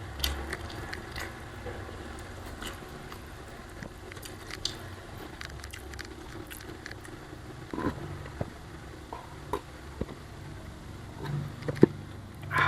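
Close-up eating sounds: chewing and mouth noises with scattered small clicks and scrapes, over a steady low hum.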